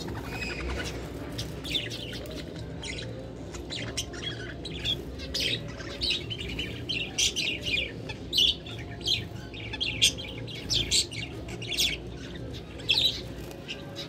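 Caged small parrots, lovebirds and budgerigars, chirping and squawking in short, sharp, high calls that come thicker and louder through the second half.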